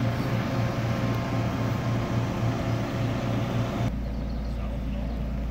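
Telehandler's diesel engine running steadily at close range. About four seconds in, the sound changes abruptly to a duller, lower engine drone.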